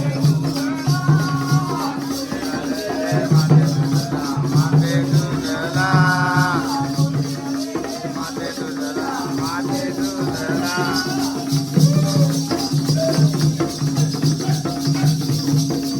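Jakhadi folk song: a voice singing over a steady held drone, a pulsing drum beat and a constant jingling rattle keeping the rhythm.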